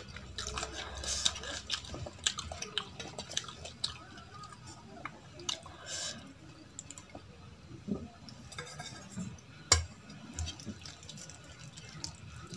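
Fingers squelching as they mix rice with kadhi on a steel plate, with kadhi poured from a steel bowl onto the rice about halfway through. One sharp knock near the end is the loudest sound.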